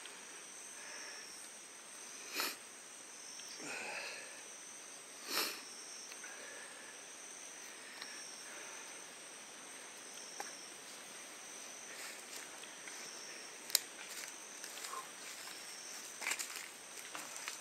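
Steady high drone of forest insects in two thin, unchanging tones. A few soft rustles come from cloth and gear being handled, with a sharp click about fourteen seconds in.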